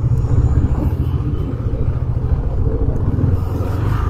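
Motorcycle under way: a KTM 390 Adventure's single-cylinder engine running, with a heavy, steady low rumble.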